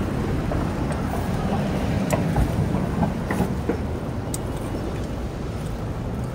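Bicycle rolling along sidewalk paving: a steady low rumble of wind and tyre noise, with a few light clicks and rattles.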